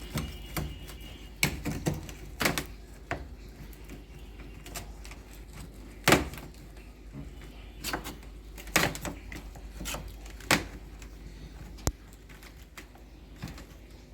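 Thin steel spoon knocking and prying at thick, hard ice in a deep freezer: scattered, irregular clicks and knocks, the loudest about six seconds in.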